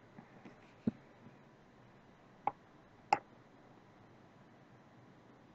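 Three short, sharp computer mouse clicks, one about a second in and two more close together around two and a half to three seconds, over faint steady hiss.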